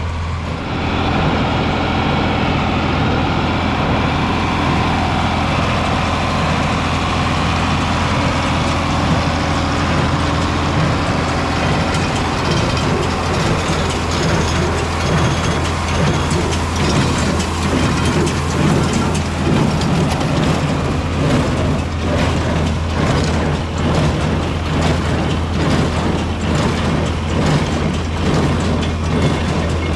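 John Deere 4020 tractor engine running steadily under load, with a small square hay baler's mechanical clatter building up about halfway through.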